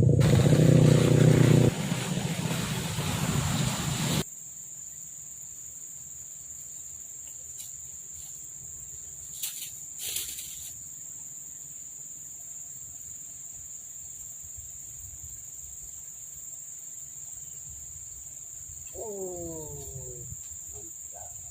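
A motorcycle engine runs loud for about four seconds and then cuts off abruptly. After it, a steady high-pitched insect drone, typical of crickets, carries on, with a couple of faint clicks and a brief call near the end.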